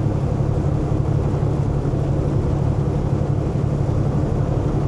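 Semi truck's diesel engine and road noise heard from inside the cab while cruising on the highway: a steady low drone.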